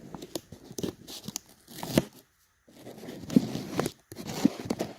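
Tape being pulled off the roll and torn, then pressed and handled into place. It comes in several rough, rasping stretches with sharp clicks and taps between them, with a brief pause just after two seconds in.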